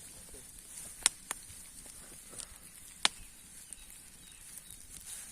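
Three sharp cracks over a steady high hiss: two close together about a second in, and a louder single one about three seconds in.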